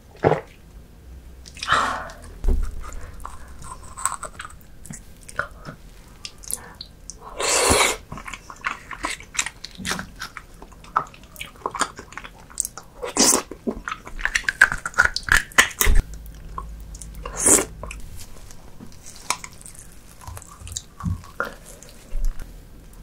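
Close-miked eating sounds: a person chewing and biting sticky, chewy food, with irregular wet mouth clicks and a few louder bites.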